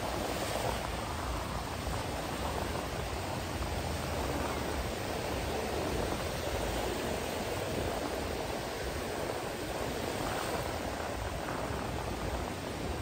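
Steady rushing noise of beach surf, with no distinct events standing out.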